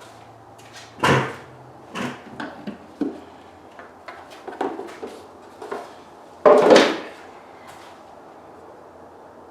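Parts being handled, knocking and clattering irregularly: a clunk about a second in, several lighter knocks, and the loudest clatter, about half a second long, roughly two-thirds of the way through.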